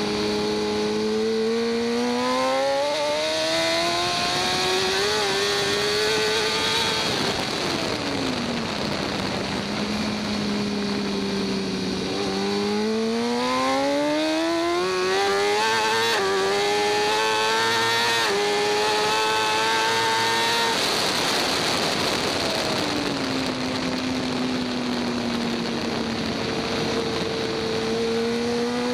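2014 BMW S1000RR's stock inline-four engine under hard riding: the revs climb through the gears with brief dips at each upshift, fall away about seven seconds in and again around twenty seconds in as the bike slows, then climb again near the end. A steady rushing noise runs underneath.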